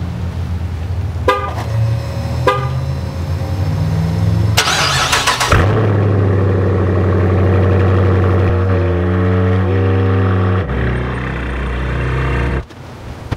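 A 2017 Dodge Charger R/T's 5.7-litre HEMI V8 is started from the key fob after two short horn chirps. The engine catches with a loud flare about four and a half seconds in, then runs while the car is driven into the garage, and it is shut off near the end.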